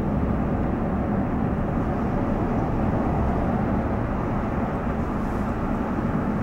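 Steady road and engine noise of a moving car, heard from inside the cabin: an even low rumble with no breaks.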